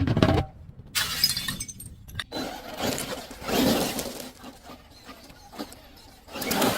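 Glass being crushed and broken: a series of separate crunching, shattering bursts a second or so apart, with quieter gaps between.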